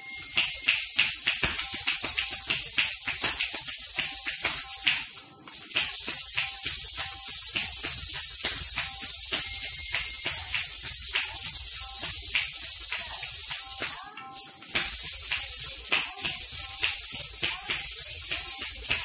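Ghungroo ankle bells jingling with rapid Kathak footwork, in dense quick strokes over a faint repeating melody line. The jingling breaks off briefly twice, about five seconds in and again about fourteen seconds in.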